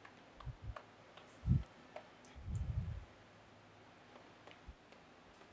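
Chalk writing on a chalkboard: a few soft knocks and faint scattered clicks as the chalk strikes and scrapes the board.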